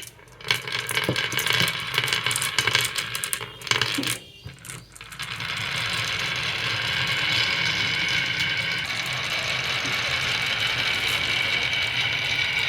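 Marbles clattering and rolling down a wooden marble run, with a rapid run of clicks for about four seconds. After a brief lull, a steady whirring sound with fixed high tones takes over.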